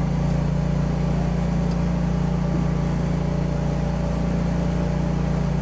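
A self-propelled JayLor A100 TMR feed mixer running with a steady, even low drone.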